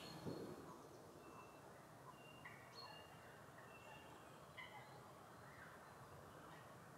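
Near silence with faint birdsong: a scattering of short, high whistled notes over the first five seconds or so.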